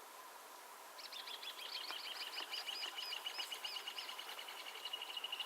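A songbird singing a rapid series of high notes that start about a second in and run together into a fast, even trill near the end, over a faint steady hiss.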